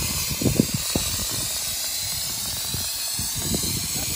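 Air hissing steadily out of a truck tyre as it is aired down before an off-road trail, with irregular low knocks underneath.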